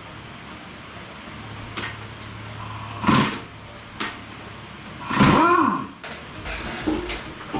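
Engine teardown handling sounds: metal parts and tools clinking and knocking a few times, with a drawn-out squeak a little past halfway, over a steady low hum.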